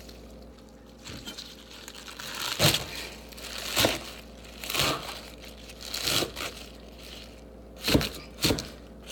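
Fresh spinach leaves being torn and crushed by hand, a crinkling rustle every second or so from a couple of seconds in.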